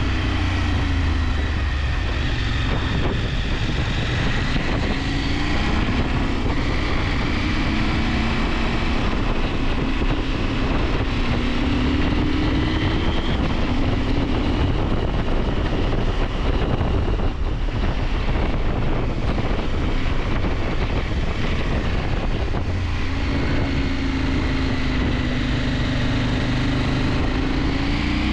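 KTM 890 Adventure's parallel-twin engine running under way, its pitch rising and dropping again several times as it pulls through the gears, with wind rushing over the microphone.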